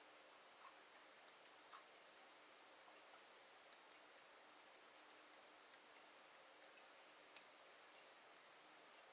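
Faint, scattered light clicks and ticks of a dimple pick and tension wrench working the pins of a six-pin Magnum high-security dimple lock, with one slightly sharper click about three-quarters of the way through.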